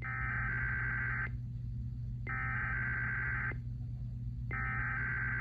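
Emergency Alert System SAME header: three bursts of buzzy digital data tones, each about a second and a quarter long with a second's pause between, announcing the start of the next alert. A steady low hum runs underneath.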